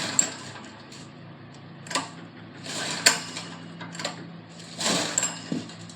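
Clicks, knocks and clatter of hands working on a gasoline generator's parts, over a faint steady low hum.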